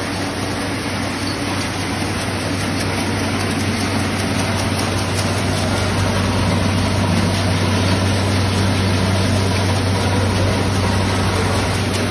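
Heavy-duty wheat cleaning machine running: its motor and aspirator blower give a steady low hum under a rush of air-and-grain noise, growing slightly louder midway.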